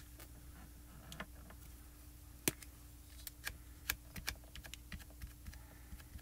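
Light plastic clicks and taps from small Catherine Pooler ink pad cases being handled and opened, coming at irregular intervals, with one sharper tap about two and a half seconds in.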